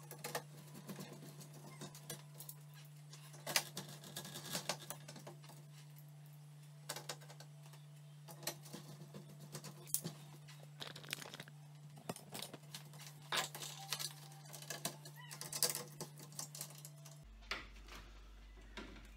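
Irregular small clicks and taps as an LCD TV's power supply board is handled in its metal chassis and its cable connectors are plugged back on.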